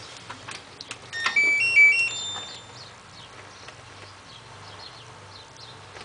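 LG F1222TD Direct Drive washing machine's control panel playing its electronic power-on tune as it is switched on: about six quick high beeps stepping up and down in pitch, the last one held a little longer.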